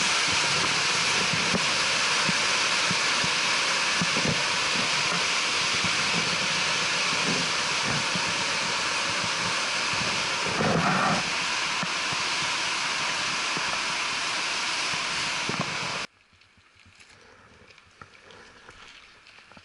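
Whitewater river rapids rushing, a loud, steady noise that cuts off abruptly about sixteen seconds in, leaving a much quieter background with a few faint knocks.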